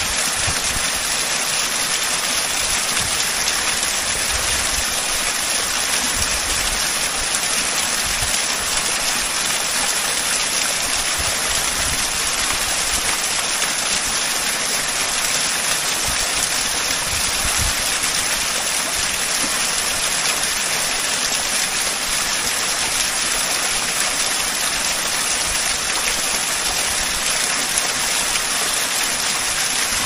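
Waterfall: water dropping about 72 m over three tiers, a steady, even rush with uneven low rumbles underneath.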